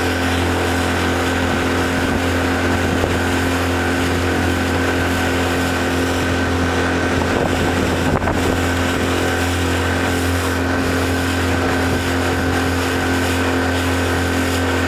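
A small speedboat's motor running at a steady cruising speed: a constant low drone with a steady high whine over it, under an even hiss of rushing wind and water.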